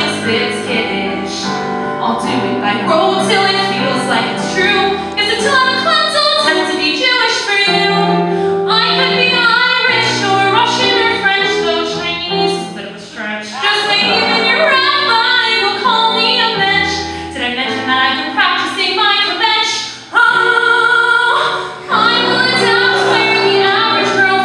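A woman singing a cabaret song into a microphone, her voice holding and sliding between notes, over an accompaniment of steady low notes.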